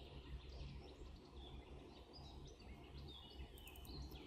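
Quiet room tone: a low steady hum with faint bird chirps in the background.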